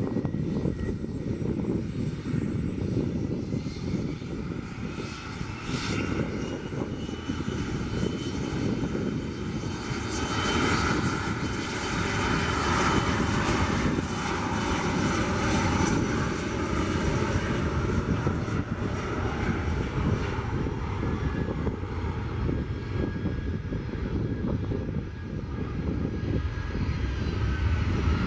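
Twin rear-mounted turbofan engines of an Embraer ERJ regional jet, a steady jet rumble with a whine that rises in pitch over the first several seconds as the engines spool up on the runway, loudest as the jet passes.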